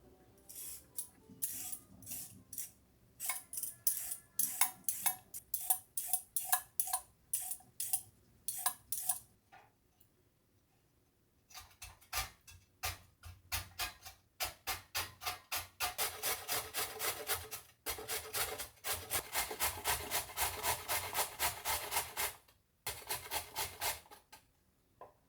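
Carrots being grated by hand on a grater: rhythmic rasping strokes, about two to three a second, that pause briefly about ten seconds in and then come faster and closer together.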